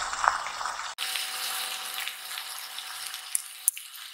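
Pork belly frying in a pan with minari and mushrooms: a steady sizzle with a few sharp crackles and pops in the second half.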